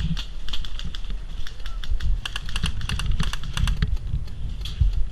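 A run of irregular sharp clicks and snaps, thickest around the middle, over a steady low rumble.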